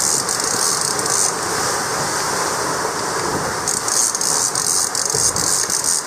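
Wind rushing over the microphone and the sea rushing along the hull of a sailboat under way in rough water. A high, rattling hiss swells up twice, once at the start and again about four seconds in.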